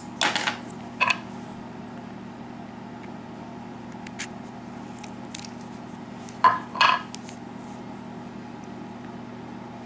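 Small metal clicks and scrapes of a euro cylinder lock's plug and pin tumblers being handled while the lock is taken apart. A few separate clicks, the loudest pair about two thirds of the way through.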